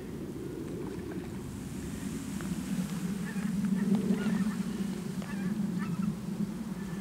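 Geese honking, the calls growing louder partway through, with light splashing of water as a carp is let go from hands in the shallows.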